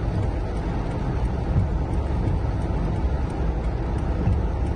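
Steady low rumble inside a car in heavy rain: rain on the car body mixed with engine and road noise, unchanging throughout.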